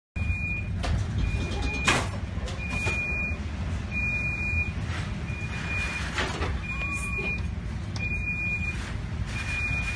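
Electronic alarm beeping steadily, one long beep about every 1.3 seconds, over a constant low rumble of storm wind and sea. A few sharp knocks cut through, the loudest about two seconds in.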